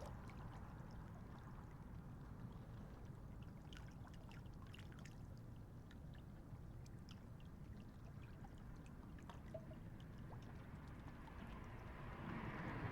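Faint lakeshore ambience: a steady low rumble with light water lapping and trickling that grows louder near the end, and a few faint scattered clicks.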